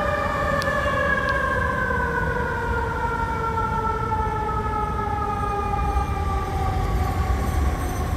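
A fire engine's siren, on a 2004 American LaFrance pumper, winds up sharply and then winds down slowly in one long falling tone, with a low rumble underneath.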